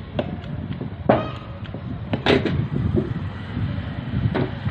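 Three sharp knocks, about a second apart, over a low rumbling handling noise.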